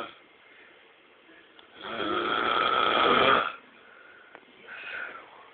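A woman snoring in her sleep: one long, loud snore starting about two seconds in and lasting about a second and a half, then a shorter, fainter one near the end.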